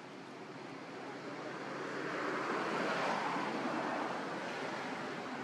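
A steady rushing noise that swells over the first three seconds and then holds, with a faint low hum under it.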